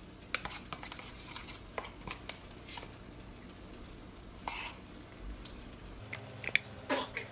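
Scattered light clinks and taps as sofrito is scooped from a plastic tub into a large metal cooking pot, with a few louder clinks near the end.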